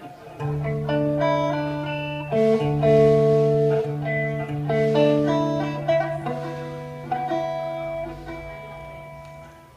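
Guitar picking a melody of single notes over a low note held underneath, fading away toward the end.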